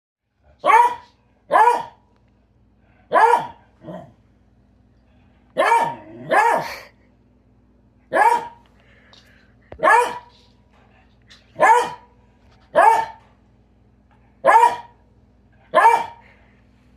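A beagle barking over and over, about a dozen short, loud barks roughly a second or so apart, at a propane heater it is alarmed by. A faint steady hum lies underneath.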